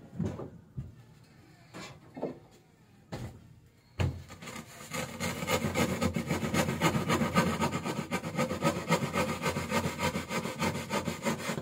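Mitsubishi 4D31 four-cylinder diesel engine starting about four seconds in and running with a rapid, even, rasping clatter, on a test run after installation. A few short knocks come before it.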